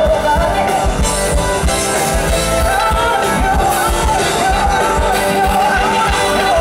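Live band music recorded from the crowd: a woman singing over acoustic guitar and a band with drums, loud and steady.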